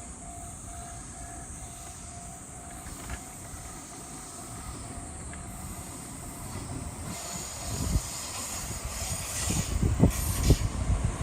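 Japanese level-crossing warning bell ringing a steady 'kan-kan' beat. A JR train approaches, its noise building from about seven seconds in. In the last few seconds its wheels knock rhythmically over the rail joints as it passes through the crossing.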